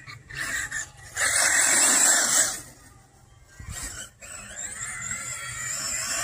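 Electric HPI Vorza 1/8-scale off-road buggy running on 6S LiPo power on dirt: a loud burst of tyre and drivetrain noise about a second in lasting about a second and a half, then quieter running that builds again toward the end.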